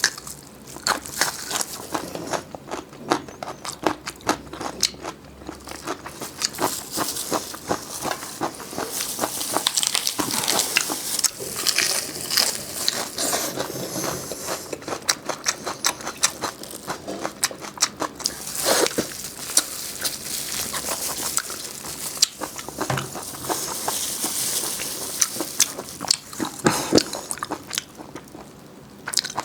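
Close-miked eating: repeated crunchy bites and chewing of crisp food, full of irregular crackles and clicks.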